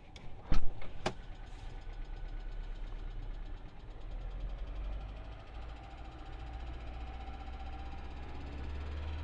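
Two sharp knocks about half a second and a second in, then an Alfa Romeo 147's 1.6 Twin Spark engine runs steadily with a fast, even knocking tick from the valvetrain. The owner later traced the knock to faulty hydraulic lifters, and replacing all 16 cured it.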